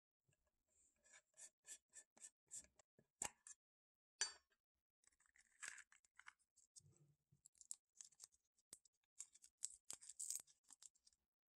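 Handling of a metal tin of foil-wrapped herbal candies: a run of quick scratchy clicks, about five a second, then a sharp metallic click about four seconds in as the lid comes off. Foil-wrapped candies then rustle in the tin, and one is unwrapped with crinkling foil near the end.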